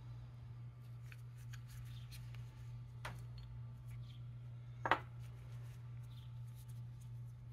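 Faint clicks and light metal taps of a Porsche 944 oil pump's rotor gears being handled and separated by gloved hands, with one sharper clack about five seconds in, over a steady low hum.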